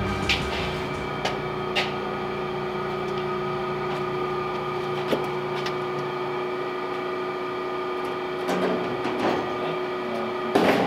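Steady mechanical hum with a few light clicks, then metal knocks and clatter about eight to nine seconds in and a louder knock near the end, as metal parts are handled on the car's body.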